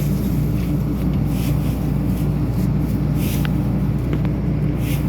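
Combine harvester's engine running steadily at an even pitch, with a few faint light ticks near the middle.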